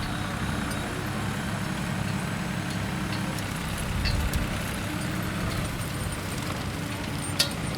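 Tractor engine running steadily, a low even rumble with a few faint clicks over it.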